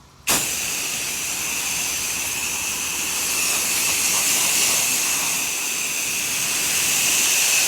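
Spray nozzle of a house-washing rig spraying cleaning soap onto a shed's dirty trim: a loud, steady hiss that starts abruptly about a third of a second in.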